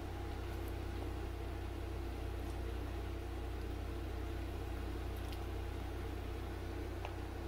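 A steady low mechanical hum that does not change, with a few faint ticks.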